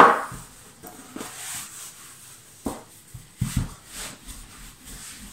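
Rolling pin working a sheet of puff pastry on a worktop: a few knocks and thuds with rolling noise between.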